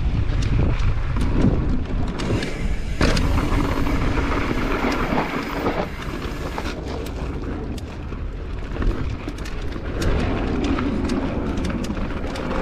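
A mountain bike riding over a rough dirt trail, with wind rushing over the microphone and a steady run of clicks, knocks and rattles from the bike.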